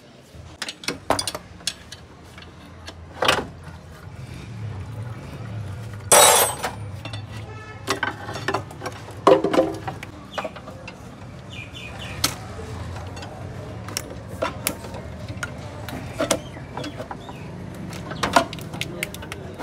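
Scattered clicks, knocks and clinks of hands handling parts in a car's engine bay, with the loudest knocks about six and nine seconds in. A low steady hum starts a few seconds in and carries on underneath.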